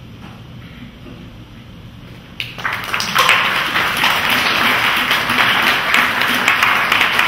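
Quiet room, then an audience breaks into applause about two and a half seconds in, swelling quickly and clapping steadily on.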